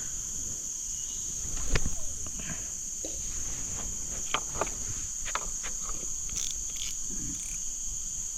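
Steady high-pitched chorus of insects, with a few scattered short clicks and one louder knock about two seconds in.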